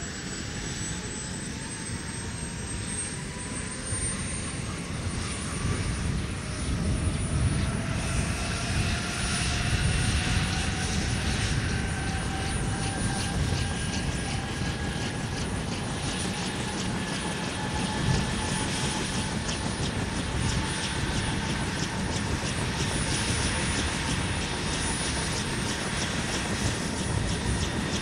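AH-1 Cobra helicopter's turbine engine winding up at start-up: a whine that rises in pitch and grows louder over the first several seconds, then runs steady over a low rumble as the main rotor begins to turn.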